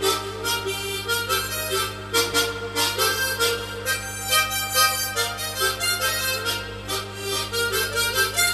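Unaccompanied harmonica playing a melody over its own rhythmic chord accompaniment, the chords chopped out with the tongue and mouth shape in a steady beat.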